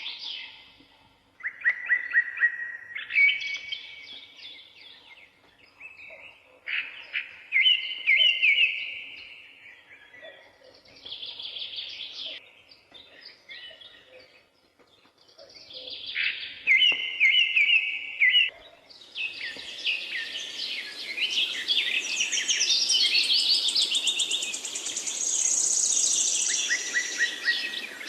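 Songbirds singing in a forest, with repeated short trilled phrases at intervals. About 19 seconds in, a denser chorus of many birds calling at once takes over, over a steady hiss.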